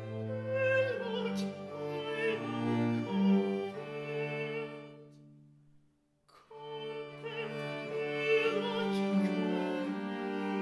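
A consort of violas da gamba playing slow early music with a singer. The music dies away about halfway through and starts again after a brief pause.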